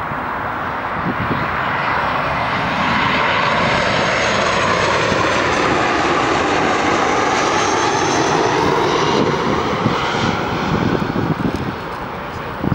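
CFM56 turbofan engines of a KLM Boeing 737 on final approach, passing low overhead. A steady rushing jet noise builds over the first couple of seconds and stays loud through the middle, with a whine that drops in pitch as the aircraft goes past, then eases near the end.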